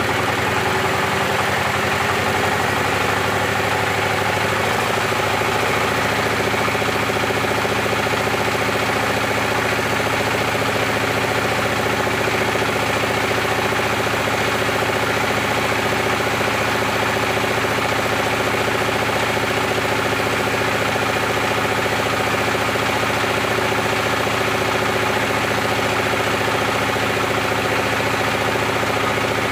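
Dongfeng 24 hp single-cylinder diesel engine running just after a hand-crank start. It picks up speed over the first few seconds, then runs steadily.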